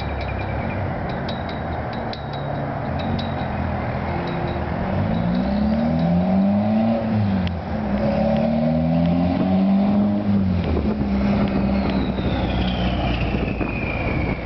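Toyota MR2's turbocharged four-cylinder engine running through an open downpipe with no muffler, so the exhaust is loud and raw. It runs steadily at first, then revs up hard twice, the pitch climbing and dropping with each gear change as the car pulls away. Near the end a high whine falls steadily in pitch.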